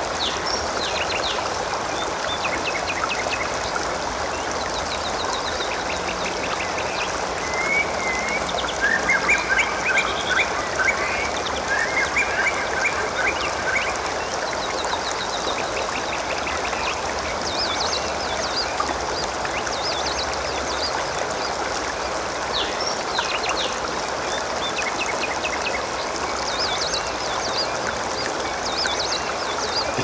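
Water gurgling steadily, with small birds chirping in short repeated trills throughout. From about 8 to 14 seconds in, a louder bout of repeated calls stands out.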